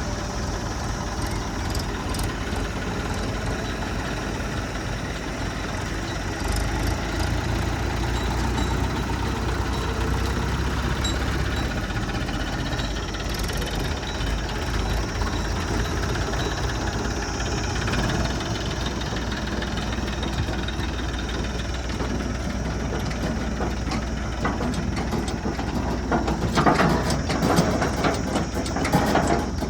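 Backhoe loader's diesel engine running steadily, working harder for about five seconds starting some six seconds in, with a spell of clattering knocks near the end.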